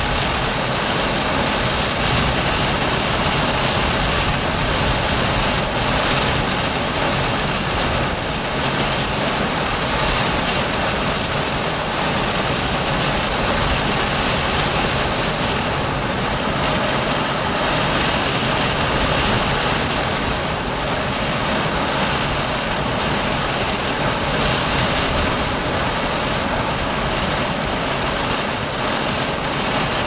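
Heavy thunderstorm rain and high wind pounding a car, heard from inside the car: a steady, loud rush of rain with a low rumble of wind buffeting underneath.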